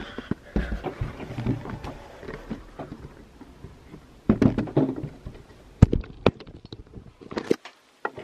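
Handling noise from a camera being moved by hand and set down on a table: rustling with scattered knocks and bumps, a sharper knock about six seconds in and a last thump near the end, after which the noise drops away.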